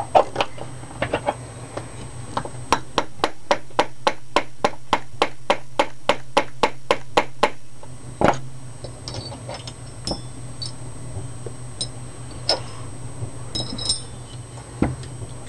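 Hammer tapping a punch to drive a pin into an AR-15 lower receiver: a quick, even run of about twenty light taps, four or five a second, then one harder strike, followed by scattered small clicks of metal parts.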